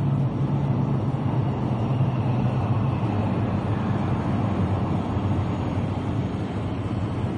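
Steady low rumble of an Adtranz-Siemens A1 metro train approaching through the tunnel, heard from the platform.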